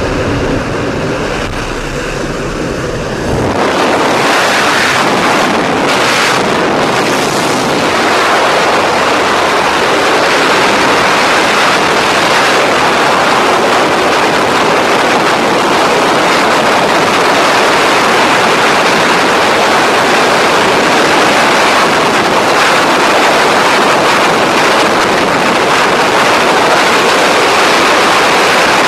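Aircraft engine drone at the open door, then, about three and a half seconds in, loud steady freefall wind rushing over the camera microphone as the skydivers fall.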